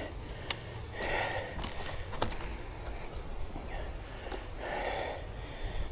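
A person breathing hard in a few heavy breaths while handling a fallen tree, with a few sharp clicks or snaps of wood in between.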